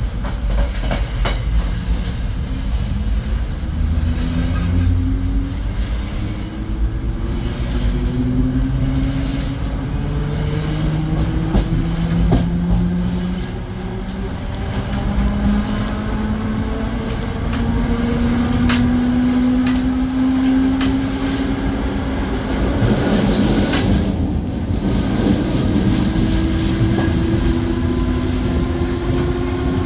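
Series 2100 electric multiple unit (TUE) under way, its traction motors humming in several tones that climb in pitch in steps as the train gathers speed, over a rumble of wheels on rail with scattered clicks. A short rush of noise comes about three-quarters of the way through.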